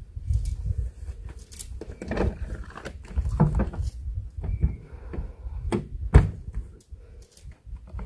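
Footsteps and scattered knocks of someone hiking up a forest trail, over a constant low rumble on the microphone, with a sharp thud about six seconds in.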